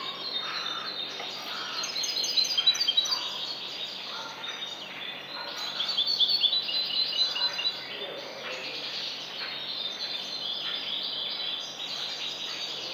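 European goldfinch singing: a rapid twittering song of quick chirps and trills, with two louder stretches about two seconds and six seconds in, over steady background noise.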